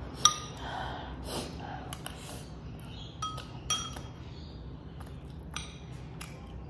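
Metal spoon clinking and scraping against a ceramic bowl while scooping food, with several sharp, ringing clinks among softer scrapes.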